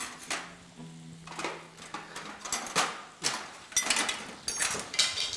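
Metal cooking utensil clinking and scraping against a frying pan and steel pot, a series of short knocks with a bright ring, spread about a second apart. A faint low hum runs for about a second and a half near the start.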